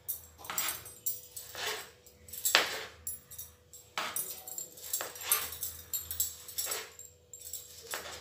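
Kitchen knife slicing a tomato on a plastic cutting board: a run of irregular chopping knocks, roughly one a second, each with a bright jingle from the bangles on the cook's wrists.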